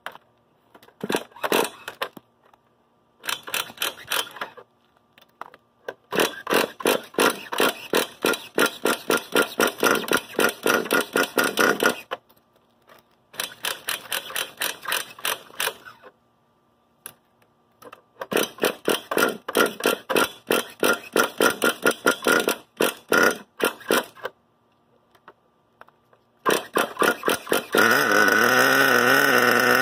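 Small nitro glow engine of an HPI Savage 25 RC monster truck being pull-started: several bursts of rapid cranking strokes with pauses between pulls. It is hard to start because its fuel line had been taken off and it is low on fuel. Near the end it catches and runs, its pitch wavering as it settles.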